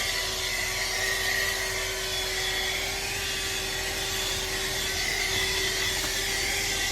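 ArmorAll 12V handheld car vacuum running steadily: a constant motor whine over rushing air.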